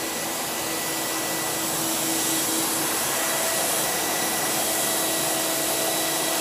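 Several water-damage air movers (carpet-drying blower fans) running together: a steady rush of air with a faint hum in it. The hum jumps to a higher pitch about three seconds in.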